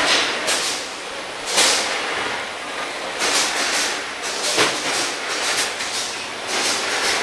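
Spiral paper tube winding machine running: a steady mechanical noise broken by sharp, hissy clacks about once a second.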